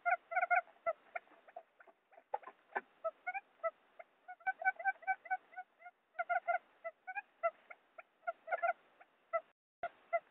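Quail lure call from a recording: rapid runs of short, clipped, pitched notes in bursts, with a short break near the end. It is a trapping lure call, played to draw wild quail in.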